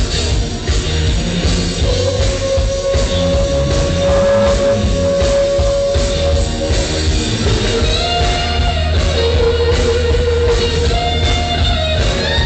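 Loud music with a heavy, pulsing bass and long held melody notes that change pitch every few seconds.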